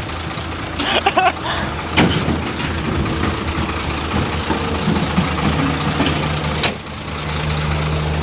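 Heavy diesel engine running steadily, with sharp metallic knocks about two seconds in and again near seven seconds. The engine note strengthens near the end as it takes on load.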